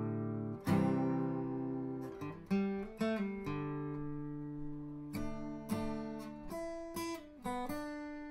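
Acoustic guitar music: chords strummed or plucked every second or two, each left to ring and fade.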